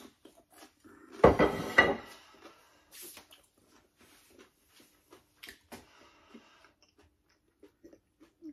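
A china plate set down on a worktop with a clatter about a second in, followed by soft clicks and mouth sounds of chewing a hash brown fry.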